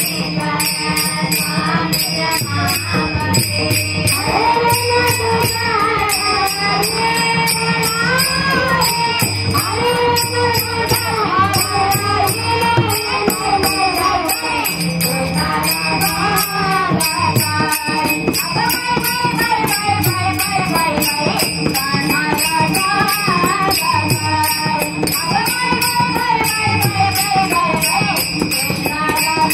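A woman's voice sings a Marathi gavlan devotional folk song, accompanied by a hand-played pakhawaj barrel drum and small brass hand cymbals (tal) clashed in a steady beat.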